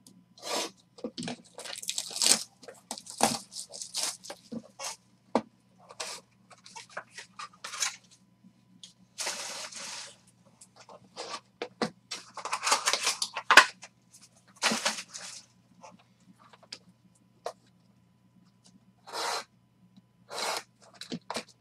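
The wrapping and cardboard of a basketball card box being cut with a folding knife and handled: irregular bursts of crinkling, tearing and scraping, with a few sharp clicks.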